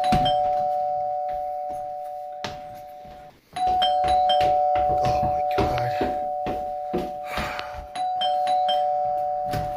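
Two-tone doorbell chime rung over and over: a ding-dong about every four seconds, each pair of notes ringing on and fading before the next. Sharp thumps fall between the rings.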